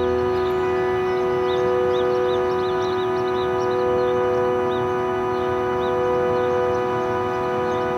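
Ambient background music: a sustained synth-pad chord of steady held tones, with short high chirps scattered over it.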